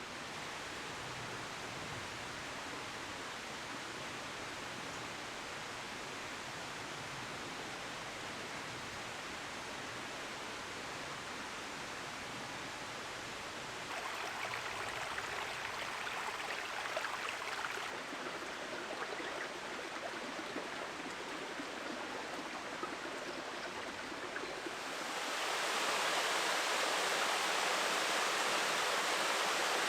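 Steady rushing of flowing water, a stream or waterfall. It gets louder and brighter in two steps, about 14 seconds in and again about 25 seconds in.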